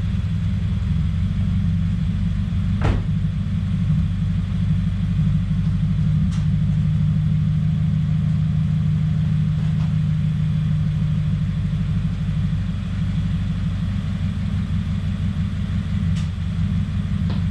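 A 2017 Subaru WRX's turbocharged 2.0-litre flat-four engine idling roughly, with a few faint ticks. The owner suspects a boost or vacuum leak after the charge pipe and top-mount intercooler were changed.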